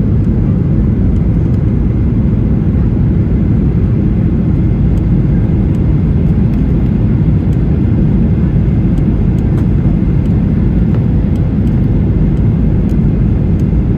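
Jet airliner noise: a steady, even low rumble of engines and airflow with no rise or fall.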